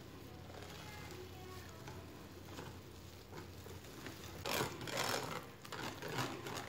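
Hand whisk beating flour into a thick batter in a glass bowl: a rapid run of scraping strokes against the bowl, faint at first and much louder from about four seconds in.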